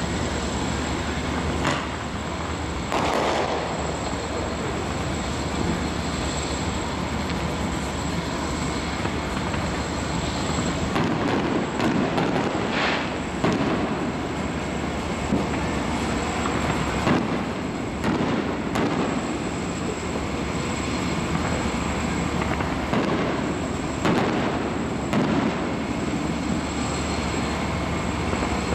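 Distant Fourth of July fireworks going off, about eight short bangs at uneven intervals, over a steady rumbling background.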